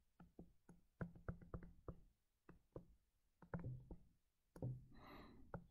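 Faint stylus taps and strokes on a tablet screen during handwriting: an irregular run of small sharp clicks, several a second, with a soft hiss twice in the second half.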